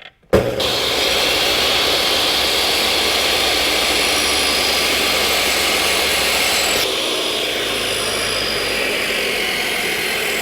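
A woodworking power tool switches on abruptly and runs steadily with a loud hiss over a low hum. Its sound drops a little about seven seconds in.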